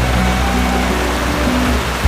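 Background music of slow, held notes that change pitch every half second or so, over a steady rushing hiss.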